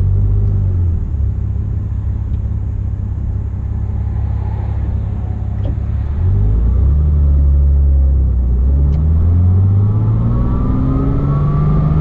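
2007 Porsche Cayman S flat-six engine running while driving. Its pitch drops early on and holds, steps up about six seconds in, then climbs over the last couple of seconds. A thinner high tone climbs with it near the end, the RPM-linked whine that the owner traced to a worn water pump bearing.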